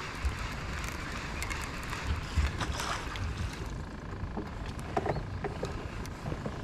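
Steady open-air noise aboard a fishing boat on a river, mostly a low rumble of wind and water, with a few faint light knocks.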